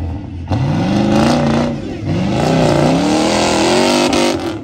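Modified Nissan Patrol off-road pickup's engine revving hard under load on a steep dirt climb, its pitch surging up and dropping back about four times.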